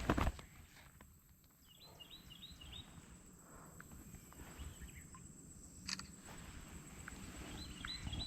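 Quiet riverside ambience with a bird giving quick runs of about four high chirps, twice: a couple of seconds in and again near the end. A sharp click comes about six seconds in.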